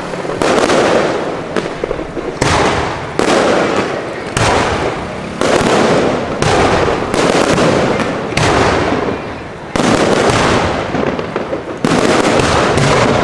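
Aerial fireworks shells bursting in quick succession, about one sharp bang a second, each trailing off for a second or so before the next.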